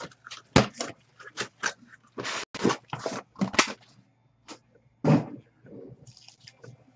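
Shrink-wrapped hobby boxes of trading cards being lifted out of a cardboard shipping case and stacked on a desk: a string of irregular scrapes, rustles and knocks of cardboard and plastic wrap, with one sharp knock about half a second in.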